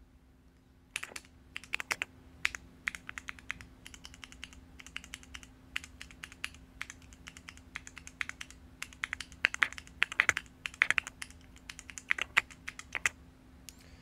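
Keys of a QINIZX 3-key mechanical macro keypad being pressed over and over in quick, irregular runs of sharp clacks. The switches have no added click; what is heard is just each key going down.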